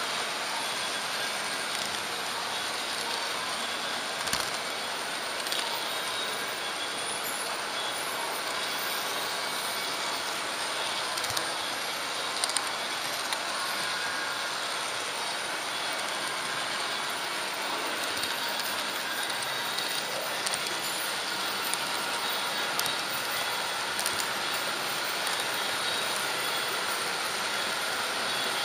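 H0-gauge model train running along its track, a steady rolling rush with a few faint clicks scattered through it.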